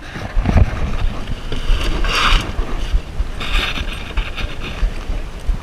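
Wind rumbling on the microphone with kayak paddle strokes swishing through the water, two louder swishes about two and three and a half seconds in.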